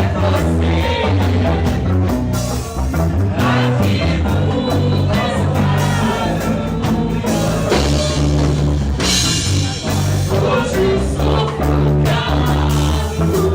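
Rock band playing live, with drums, held bass notes and a singer.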